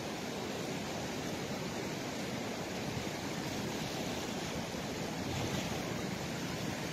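The Bregalnica river, high and swollen after heavy rain, rushing steadily below a bridge, with no let-up or change.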